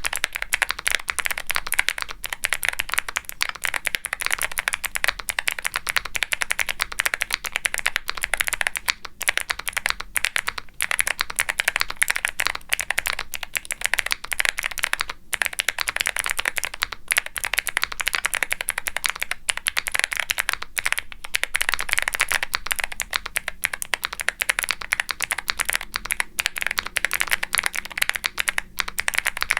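Continuous fast typing on a Womier SK75 mechanical keyboard with Gateron Melodic clicky switches: each keypress gives a crisp click followed by a deeper pop as the key bottoms out on the ABS keycaps. The typing runs with only a few brief pauses.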